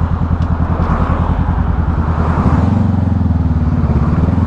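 Motorcycle engine running at low revs with a fast, even beat; about two and a half seconds in, the revs rise and the note smooths out as the bike picks up speed.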